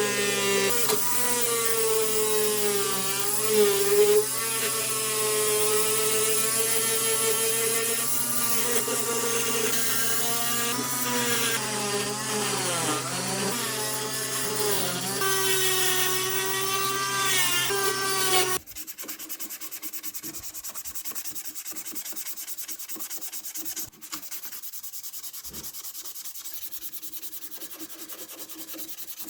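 A handheld power tool running with a whine whose pitch wavers up and down as it works. About two-thirds of the way through it cuts off suddenly to a quieter sanding and rubbing sound.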